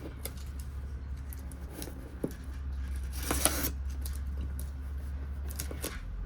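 Cardboard box being handled and opened by hand: scattered small clicks and taps, with one longer rasping scrape of cardboard or tape about three and a half seconds in.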